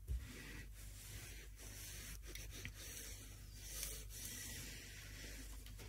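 Faint, steady rubbing of cotton quilting fabric being pressed flat, with a soft knock just at the start. The fabric is a freshly sewn and cut half-square triangle unit.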